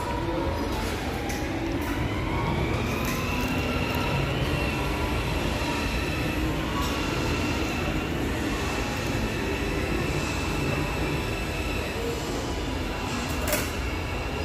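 Electric ride-on toy car's motor and gearbox whining steadily, the pitch rising over the first few seconds and then holding, over a low steady rumble.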